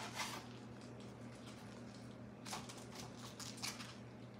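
Chef's knife cutting a small head of green cabbage into quarters on a plastic cutting board: a few faint crunches and taps over a low steady hum.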